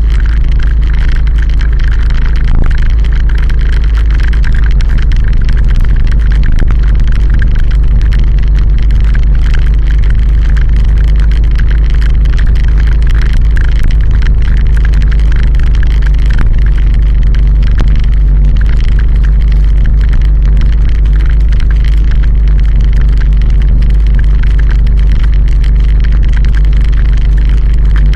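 Wind buffeting the microphone of a vehicle-mounted action camera, mixed with the vehicle's road and engine noise: a steady, loud low rumble.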